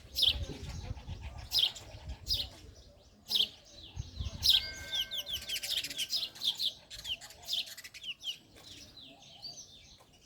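Male house sparrow chirping: short falling chirps, a few spaced singly at first, then a quick run of many in the middle that thins out toward the end.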